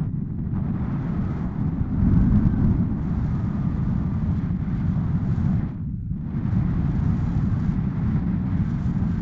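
Wind rushing over the camera's microphone in flight under a tandem paraglider: a heavy, gusty low rumble that briefly drops away about six seconds in.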